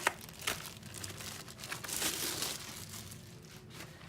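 Packaging crinkling and rustling as it is handled, with a few sharp clicks near the start and a denser burst of crinkling about two seconds in.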